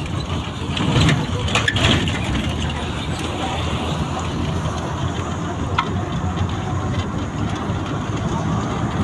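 A vehicle's engine running steadily, with the rumble and noise of it moving along the road. A few short rattles or knocks come at about one and a half to two seconds in.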